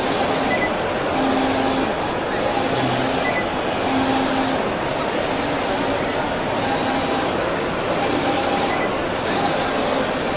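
A UV flatbed printer with an Epson DX7 print head running: a steady mechanical hiss that swells and dips about every second and a half as the print carriage sweeps back and forth.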